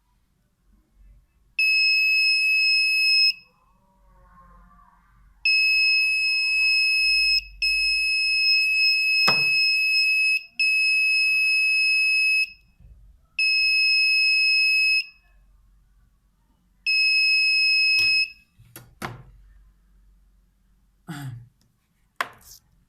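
12 V alarm buzzer sounding a steady high-pitched tone in about seven bursts of one to two seconds, each starting and stopping abruptly as the laser beam is broken and the latched alarm is reset. A few sharp clicks come near the end.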